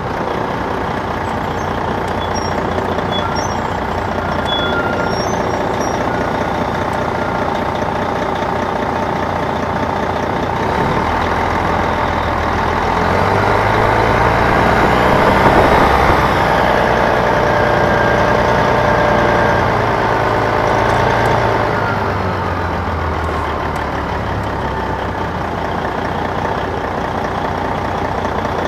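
Detroit Diesel Series 60 diesel engine of a 2002 MCI D4000 coach running under way, heard from inside at the rear of the bus. Its note climbs and grows louder from about halfway in, peaks, then drops back a few seconds later.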